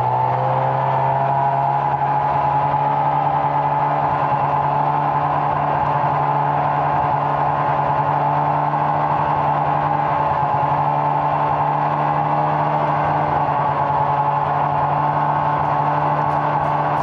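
Snowmobile engine running at a steady cruising speed, with a constant low drone and a steady higher whine over track and wind noise.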